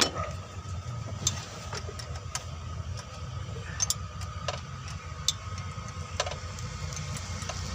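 Scattered light clicks and taps of hand tools on metal during engine disassembly, over a steady low mechanical hum with a faint constant high tone.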